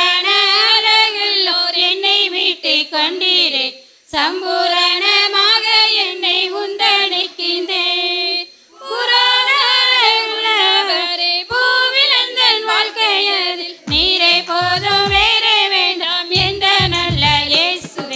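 A group of women singing a song in unison into microphones, phrase by phrase with short breaths between. Near the end, low beats join the voices.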